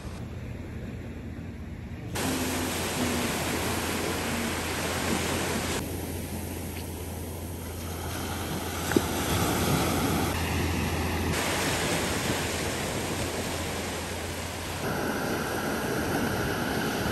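Ocean surf washing onto a sandy beach, a steady rushing with a low wind rumble, changing abruptly in level and tone a few times. A single sharp click comes about nine seconds in.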